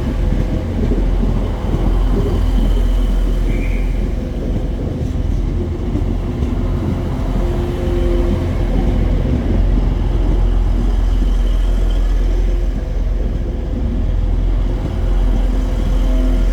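A train running close by: a steady loud low rumble with a few held humming tones over it.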